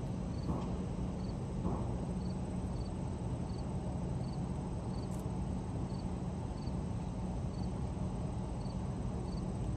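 Outdoor ambience: a steady low hum, with an insect chirping high and faint about once or twice a second.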